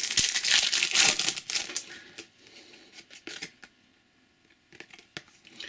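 A shiny foil trading-card pack being torn open and crinkled for about the first two seconds, followed by a few light clicks and taps as the cards are taken out and handled.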